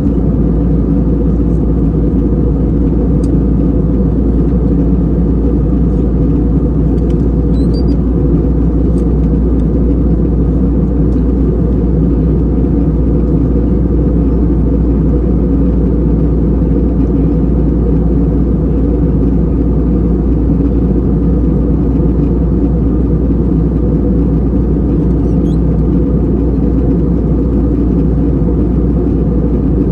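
Steady low rumble of an Airbus A320 in flight, heard from inside the passenger cabin: engine and airflow noise.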